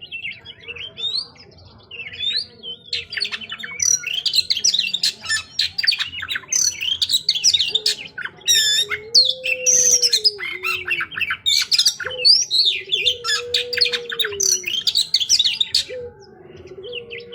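Oriental magpie-robin (kacer) singing a rapid, varied run of high chirps, trills and whistles, thin for the first couple of seconds and then dense. A lower steady tone that falls away at its end comes in three times in the second half.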